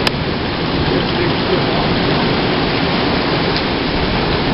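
Torrential thunderstorm rain pouring down and splashing on flooded pavement, a loud steady hiss, with one sharp click right at the start.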